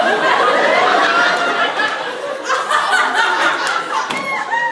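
Audience laughing, many voices overlapping, with some voices mixed in.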